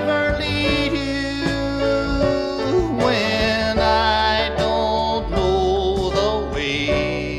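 Folk-country band music from a 1978 LP, an instrumental passage between sung lines: sustained melody lines, some of them gliding in pitch, over a steady bass.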